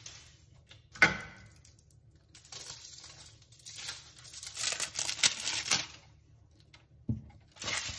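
Aluminium foil crinkling and tearing as it is peeled off the metal lid of a jar, in two spells of rustling, with a sharp knock about a second in and another near the end.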